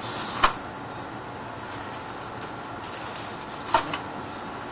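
Bagged plastic Tamiya kit parts set down on a wooden table: two sharp knocks, one about half a second in and one near the end, with faint plastic-bag crinkling between them over a steady hiss.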